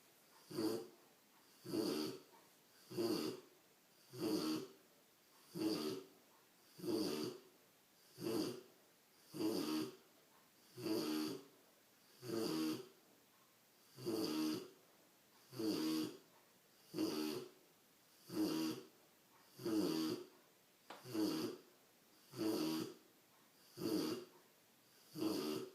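Rottweiler puppy snoring: short snores at an even pace, about one every 1.3 seconds, with quiet between them.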